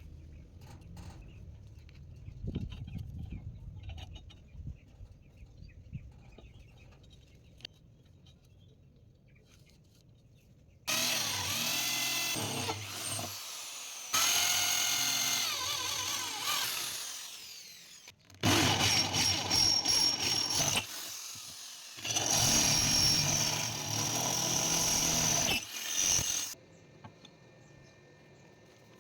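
Handheld power tool motor running in several loud bursts, its pitch sagging and recovering as it loads up, after some quiet low knocks and handling.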